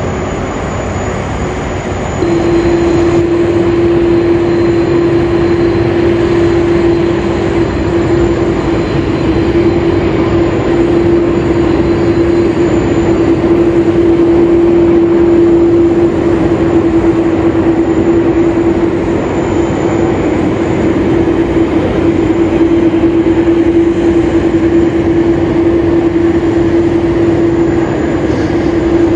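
Airbus A350-1000 airliner's Rolls-Royce Trent XWB turbofans at high thrust on departure. A steady loud roar with a strong held drone tone sets in about two seconds in and stays almost level in pitch.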